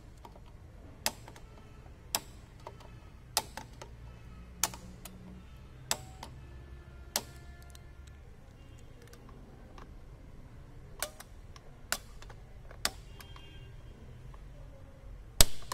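Wagon R rear drum-brake shoe adjuster being turned with a screwdriver, giving sharp single clicks about a second apart with a pause midway, the loudest near the end. The adjuster is being expanded to take up the slack left by brake shoes worn about halfway.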